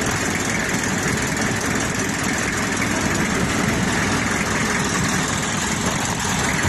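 A boat's inboard engine running steadily, heard up close from above its open engine bay.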